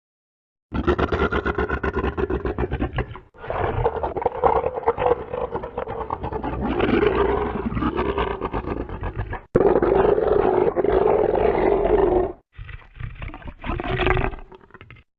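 Monster sound effects: a run of gritty growls and roars with sliding pitch, in four separate takes split by short silences.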